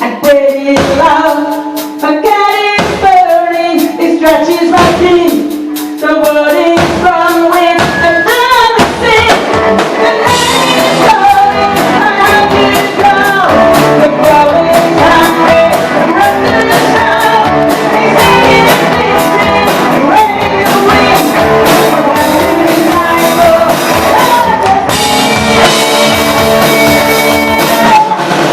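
Rock music with a sung melody over band accompaniment. The first several seconds are sparser, a sung line with separate hits; about eight seconds in, the full band comes in dense and loud.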